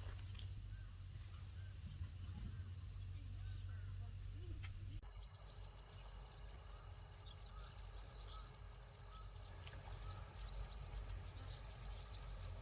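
Insects chirping high-pitched in an even rhythm of about four pulses a second, starting abruptly about five seconds in. Before that, a low steady hum with a few faint chirps.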